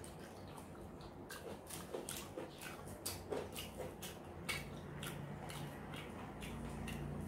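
Close-miked eating sounds from a chicken leg and rice eaten by hand: chewing, with irregular wet mouth clicks and smacks.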